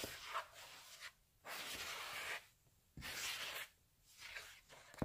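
Red silicone spatula scraping and stirring through flour and wet cookie-dough batter in a mixing bowl, in about five strokes roughly a second apart.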